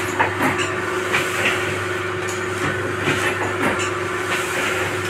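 Paper plate making machine running: its belt-driven motor hums steadily while the die press clanks and clicks as it forms silver-foil paper plates, the knocks coming every second or so.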